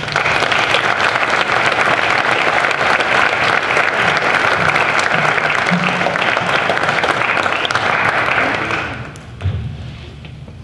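Audience applauding in an auditorium for about nine seconds, then dying away. A single short thump follows near the end.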